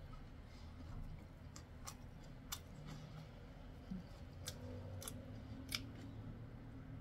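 Faint, sharp crunches and clicks, about half a dozen scattered through, from crispy fried chicken being chewed and handled with a gloved hand.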